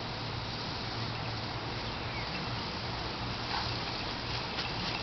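Steady outdoor background hiss with a low hum beneath it, and twice near the end a faint crunch of dogs' paws running over wood chips.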